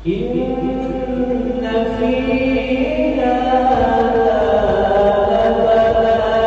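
A man reciting the Quran in Arabic in the melodic tajweed style into a microphone, drawing out one long held note that steps up in pitch a couple of times.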